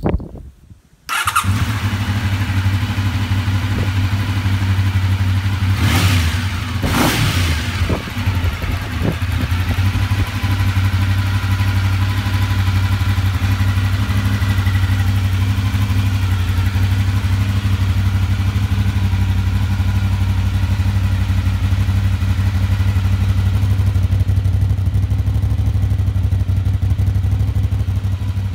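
A motor noise starts abruptly about a second in and then runs steadily and loudly, with two quick swells in pitch around six and seven seconds.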